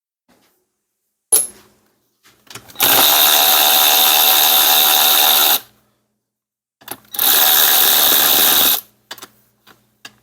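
A handheld power tool, a drill or power driver, runs in two bursts of about three seconds and one and a half seconds, with a steady motor whine, most likely spinning out fasteners on the engine. A sharp click comes about a second before the first burst, and small knocks follow each run.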